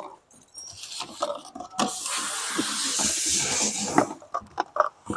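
Plastic quart bottles and their cardboard box being handled: a steady scraping rustle for a couple of seconds, then several light knocks as the bottles are set down on a concrete floor.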